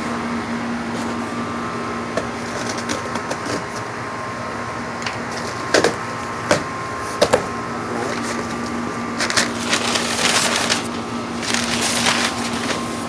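Cardboard shipping box and its packing being handled and pulled open: a few sharp knocks and snaps about six to seven seconds in, then rustling and scraping of cardboard near the end. A steady low hum runs underneath.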